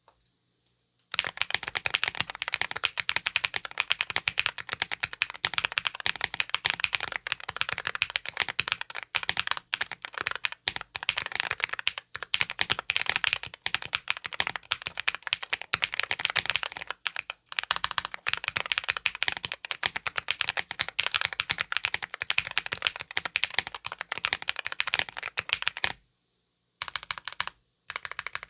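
Fast, continuous typing on a Lucky65 v1 mechanical keyboard fitted with Keygeek Xiaoxin linear switches (POM stems, nylon housings) on an FR4 plate, with the plate and PCB foam removed. The typing starts about a second in, pauses briefly near the end, then resumes.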